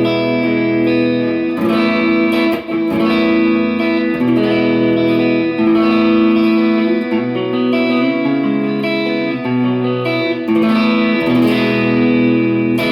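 Clean electric guitar: a 1996 Ibanez Talman on its Lambertone Crema neck pickup, played through a Kemper amp profile with a compressor on. It plays a run of ringing chords, changing every second or two.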